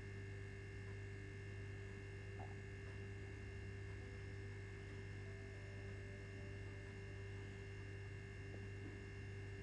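Low, steady electrical hum with a few faint ticks: room tone, with no distinct kitchen activity heard.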